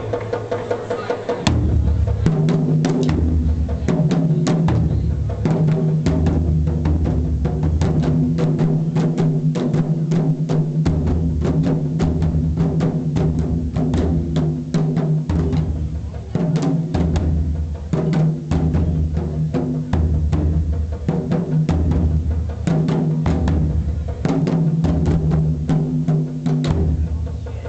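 Taiko drum ensemble playing: large barrel drums struck with sticks in a fast, driving rhythm, with deep low drum tones pulsing underneath in a repeating pattern. The low drums drop out briefly and come back in about a second and a half in.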